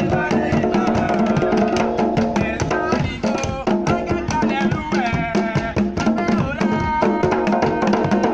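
Several djembe hand drums and a rope-laced drum played with a stick beating a dense, steady rhythm together, with a group of voices singing over the drums.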